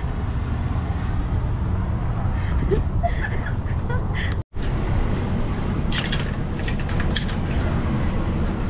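Steady low rumble of an idling diesel semi truck. The sound drops out for an instant about halfway through, and a few sharp clicks and rattles come in the second half.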